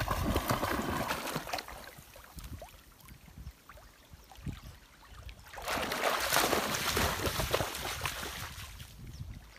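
A retriever wading and splashing through a shallow river. The splashing is loudest for a couple of seconds past the middle, as the dog runs out toward the bank, then fades.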